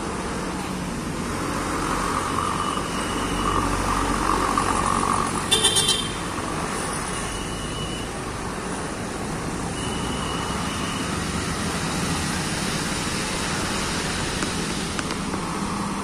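Slow traffic passing on a hill road: engines of a medium tour bus, cars and a motorcycle, with a short run of quick high-pitched horn beeps about five and a half seconds in.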